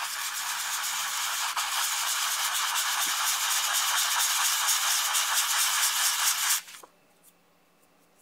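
A painted six-sided die being rubbed by hand on 800-grit wet/dry sandpaper: a steady scratchy rasp that stops abruptly about six and a half seconds in.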